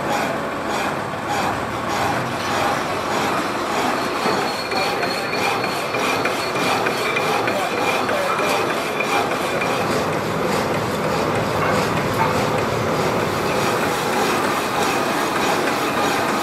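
Power hacksaw cutting through a round steel bar under coolant, the blade rasping steadily back and forth against the metal. A thin high squeal comes in for a few seconds about four seconds in.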